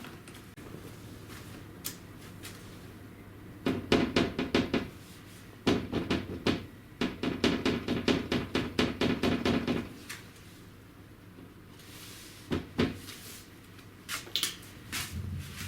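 Mazda NC Roadster's frameless door glass rattling, a rapid loose clatter in three runs, then a few separate knocks as the door is worked. The clatter is the glass moving loosely in the door, a sign of play in the window regulator or a worn part that holds the glass.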